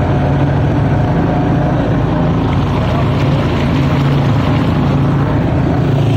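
A small boat's engine running steadily under way, a constant low drone with rushing water and wind noise over it.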